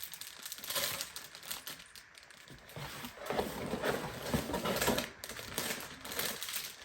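Sealed plastic bags of Lego pieces being handled, crinkling, while the loose bricks inside rattle and click.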